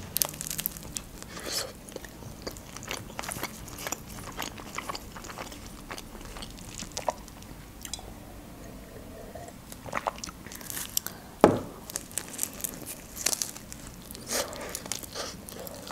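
Close-up eating sounds of a homemade shawarma wrap being bitten and chewed: many short wet mouth clicks and soft crunches. There is a quieter stretch midway during a drink of juice from a glass, and a single louder thump about two-thirds of the way through.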